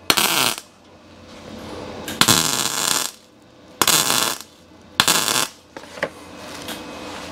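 MIG welder laying four short tack welds on a sheet-steel floor pan, each a buzz under a second long. The shielding-gas bottle has run empty, so the welds are being made without gas.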